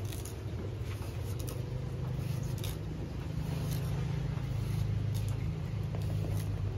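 A steady low motor hum, a little louder in the second half, with scattered light clicks and rustles of handling.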